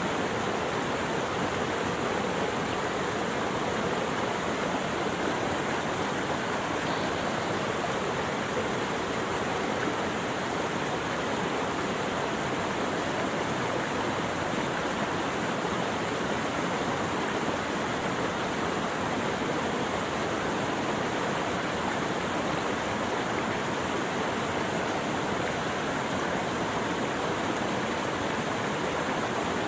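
Running water rushing steadily, an even unbroken noise with no separate splashes or drops standing out.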